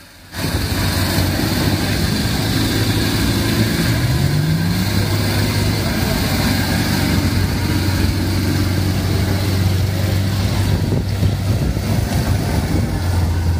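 A 4WD's engine running steadily as the vehicle wades through deep river water. The engine note rises once about four seconds in, then holds steady.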